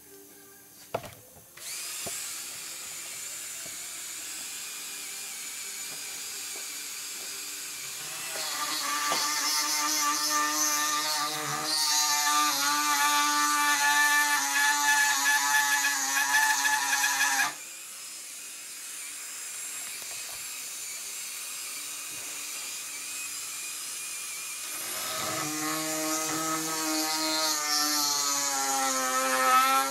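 Handheld rotary tool with a small drill bit drilling into the plug over a Mikuni carburetor's idle mixture screw, the first step in opening the plug up. It runs as a steady whine, grows louder from about 8 seconds in until about 17 seconds, drops back, then rises again near the end.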